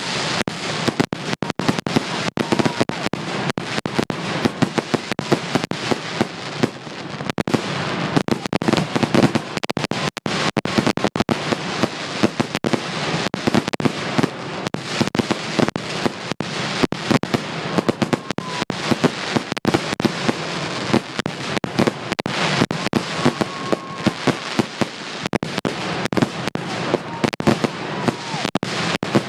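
Aerial fireworks show, many shells bursting in quick succession with sharp bangs following one another almost without a break.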